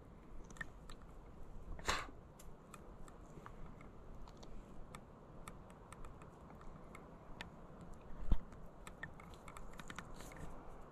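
Soft plastic worm being threaded by hand onto a shaky head jig hook close to the microphone: faint scattered clicks and rubbery handling sounds, with a sharper click about two seconds in and a dull bump about eight seconds in.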